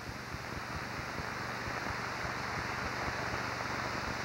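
A large audience applauding, the clapping growing a little louder over the first couple of seconds and then holding steady.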